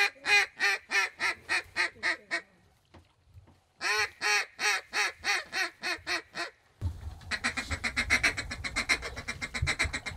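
Duck call blown by a hunter: two strings of about ten evenly spaced quacks, each string loudest at the start and tapering off, the mallard hen hail call. About seven seconds in, a faster, denser run of quacking begins over a low wind rumble.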